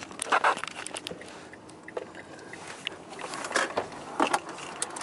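Irregular knocks, clicks and rustling from the camera being handled inside a car, over the car's low running noise as it is being parked.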